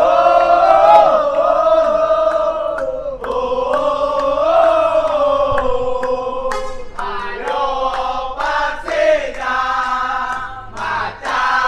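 A crowd of football supporters singing a chant together, many voices in unison, loud and close. A brief break comes about three seconds in, and the phrases turn choppier in the second half.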